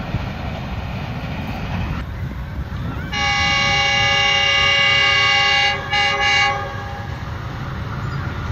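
Approaching Pakistan Railways locomotive sounding its horn as a warning to people on the track: a long multi-tone blast starting about three seconds in, then a short second blast, over a low steady rumble.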